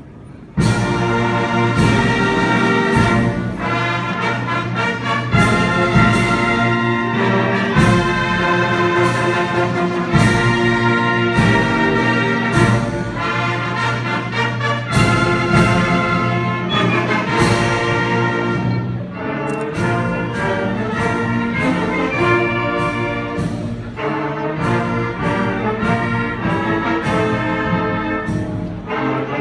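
Orchestral music led by brass, starting suddenly about half a second in and playing loudly on.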